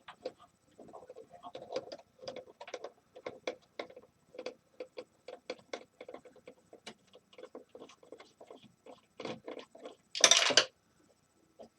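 Small irregular clicks and taps of hand-tool work on a space heater's plastic and metal parts as it is being unscrewed and taken apart, several a second, with one louder clatter lasting about half a second near the end.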